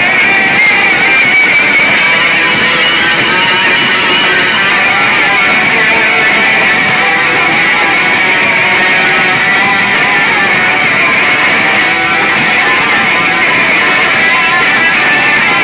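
Live noise rock from a bass-and-drums duo: distorted electric bass playing wavering, sustained lines over drums in a dense, unbroken wall of sound.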